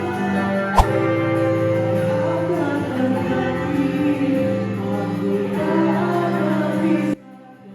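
Music with sustained tones and some singing, with a sharp click about a second in; the music cuts off abruptly near the end, leaving it much quieter.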